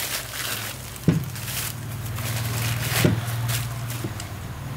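Handling noise from a wireless microphone set and its receiver: a few short knocks and rustling clicks over a steady low hum that gets louder about a second in.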